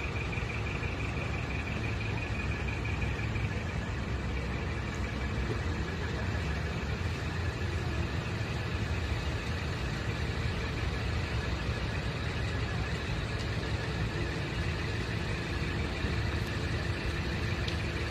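A decorated truck's engine idling steadily, with a faint steady whine above the low engine hum.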